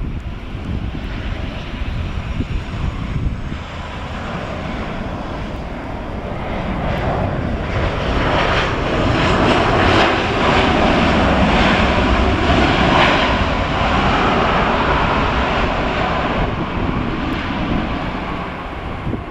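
Boeing 737-800's CFM56-7B jet engines during touchdown and roll-out on a wet runway. The jet noise builds from about a third of the way in, is loudest around the middle, and eases a little near the end.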